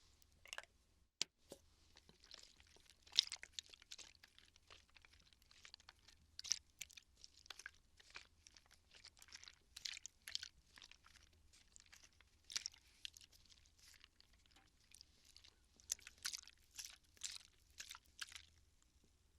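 Water bottle handled close to the microphone for ASMR: irregular, faint crackling and crinkling in quick clusters.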